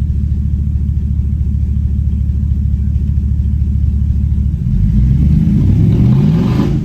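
BMW E39 M5's V8 idling low and steady with no exhaust fitted, then revved: about four and a half seconds in, the engine note climbs for a couple of seconds and begins to drop back near the end.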